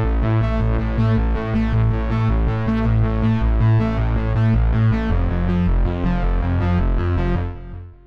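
Cherry Audio Mercury-6 software synthesizer, an emulation of the Roland Jupiter-6, playing an arpeggiated bass preset: rapid repeating notes over a deep bass line. The bass line shifts about five seconds in, and the sound fades out near the end.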